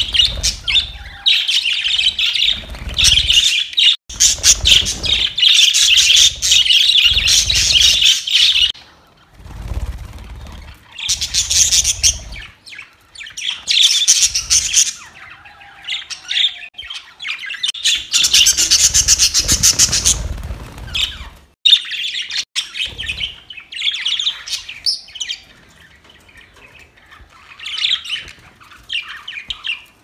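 Budgerigars chattering and chirping in quick, warbling runs: dense, loud chatter through the first eight seconds, further bursts in the middle, then thinning to scattered, fainter chirps near the end.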